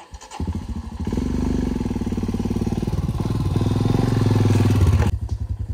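Royal Enfield Himalayan's single-cylinder engine running with a steady, even thumping beat. It comes up about a second in, holds under throttle, and eases back near the end.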